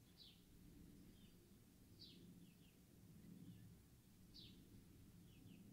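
Near silence with faint bird chirps in the background: a short falling chirp about every two seconds, with softer paired chirps between, over a low steady room hum.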